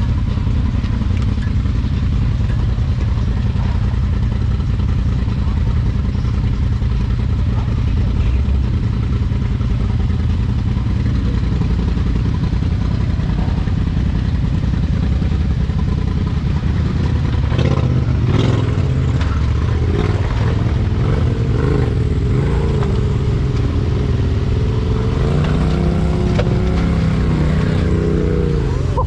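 Off-road vehicle engine running steadily under load on a rock-crawl trail. A few sharp knocks and clatters come about two thirds of the way through, and near the end the engine revs up and down.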